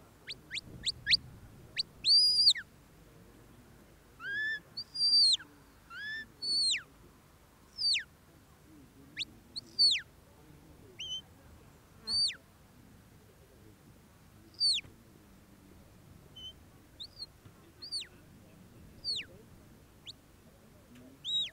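Sheepdog handler's whistle commands to a working Border Collie: a run of high, sharp whistle notes. A quick burst of short pips comes first, then longer notes that rise and fall away, spaced a second or two apart.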